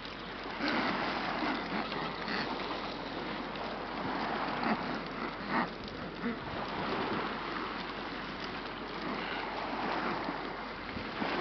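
Steady hissing beach ambience of small waves lapping on a gravel shore, with a few short, sharper sounds about five seconds in.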